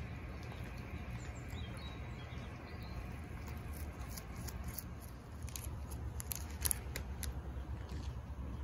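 A cat biting and chewing potted cat grass, heard as a run of crisp snips and crunches about four to seven seconds in, over a steady low outdoor rumble.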